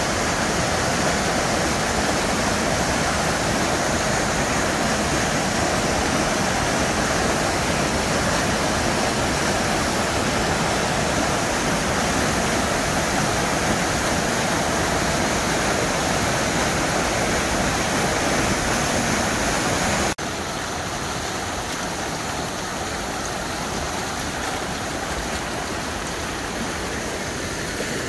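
A fast creek rushing and splashing down rock ledges in a small white-water cascade, a steady, full rushing noise. About twenty seconds in it drops suddenly to a softer, thinner rush of water sliding over flat rock.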